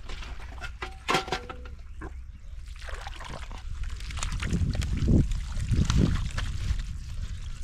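Shallow water sloshing and splashing, with scattered small knocks at first and a series of heavier sloshes from about halfway through.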